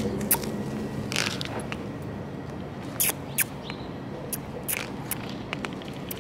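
Close handling noise from a gloved hand working a retractable dog leash near the microphone: a scattered series of sharp clicks and a few short rustles, over a steady low city hum.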